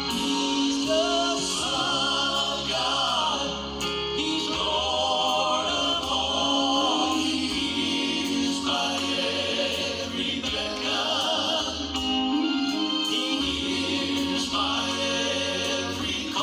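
Gospel song: voices singing a melody over sustained instrumental accompaniment, with no break.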